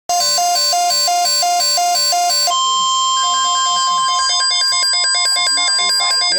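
Two weather radios, a Midland WR-120 and WR-100C, sounding a tornado watch alert: rapid electronic alarm beeping starts abruptly. About two and a half seconds in, a long steady high alert tone comes in, with pulsed beeping going on over it until near the end.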